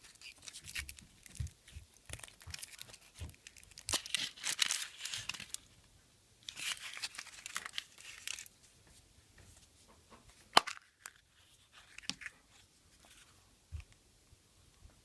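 Foil wrapper of a Kinder Surprise egg being torn and crinkled off by hand, in two longer spells of rustling with small taps and handling noise between them. A single sharp click stands out about two-thirds of the way through.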